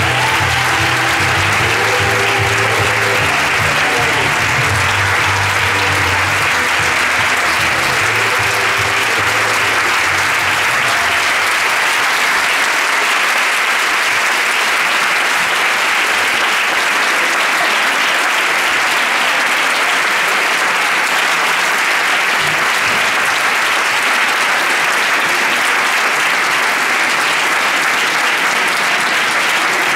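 Audience applauding steadily. The end of the dance music plays under it and stops about ten seconds in, leaving only the clapping.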